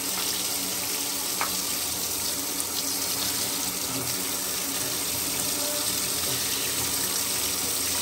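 Bathtub tap running steadily, the stream splashing over an air conditioner's cylindrical blower wheel held beneath it and into the tub.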